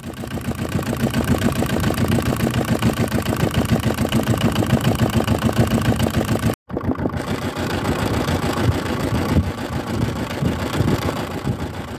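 A fishing boat's engine running steadily under way, with a fast, even beat. The sound drops out for an instant a little past halfway, then carries on.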